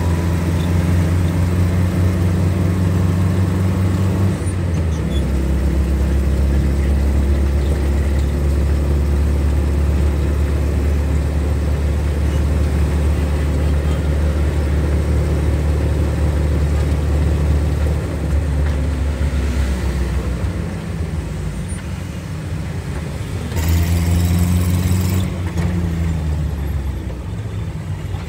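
BRTC bus engine running under way, heard from inside the driver's cab: a loud, low, steady drone whose pitch shifts about five seconds in and eases off from about eighteen seconds. A louder burst of noise comes a few seconds before the end.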